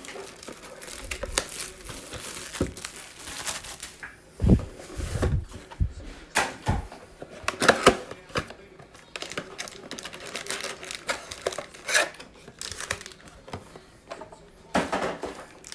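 Plastic wrapping of a trading-card mega box and its packs being torn open and crinkled by hand: irregular crackling and clicking, with a few soft thumps about a third of the way in.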